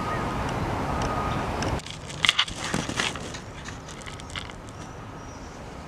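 Steady rushing outdoor noise that cuts off sharply about two seconds in. After it comes a quieter hush with a few short clicks and rustles as a golfer settles over the ball with his driver.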